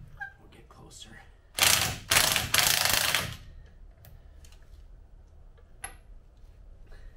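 Cordless impact wrench hammering on the bolt of the Sherp's front chain tensioner shaft in two bursts, about a second and a half in all with a short break between, working the bolt loose. Faint clicks and knocks of handling before and after.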